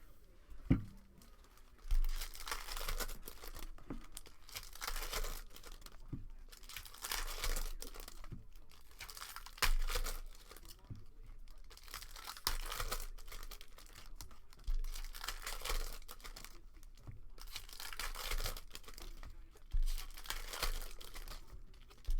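Foil trading-card pack wrappers being torn open and crinkled, one rasping tear every two to three seconds, with a single thump about a second in.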